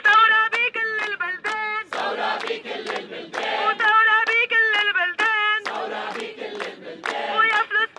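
A woman sings a protest song line by line, in Arabic, and a crowd answers each line in chorus with the refrain 'revolution'. The solo voice and the massed voices alternate twice, call and response.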